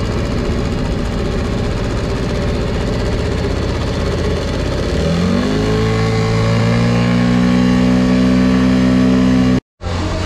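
Small Tohatsu outboard motor running in gear, then throttled up about five seconds in: its pitch climbs and settles into a steady, higher drone as the boat gets under way. The sound drops out briefly near the end.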